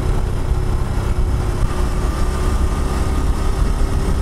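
Honda CT125 Hunter Cub's single-cylinder engine running steadily at cruising speed, under heavy wind rumble on the microphone.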